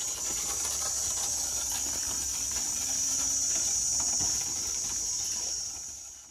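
A steady, high-pitched drone of insects calling together, fading out near the end.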